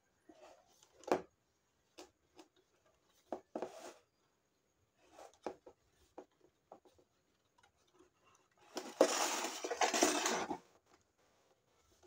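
Short knocks and clinks of hard objects being handled, then a rubbing, scraping noise lasting about two seconds near the end, the loudest sound here.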